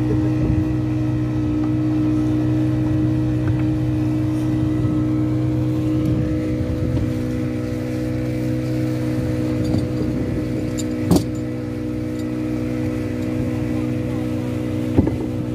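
Fishing boat's engine running steadily under way, a constant drone. Two short sharp knocks sound over it, one about two-thirds of the way through and one near the end.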